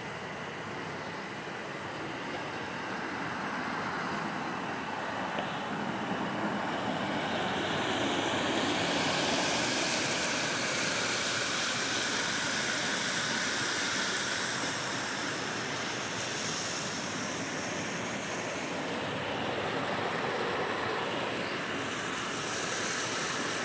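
Mountain stream rushing over rocks, a steady noise that swells louder in the middle and then eases off a little.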